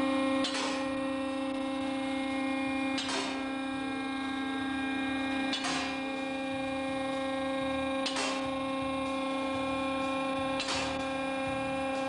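Electric workshop lift running after its 380-volt start button is pressed: a steady motor hum with a sharp metallic click about every two and a half seconds, as the lift's latch catches each notch while it rises.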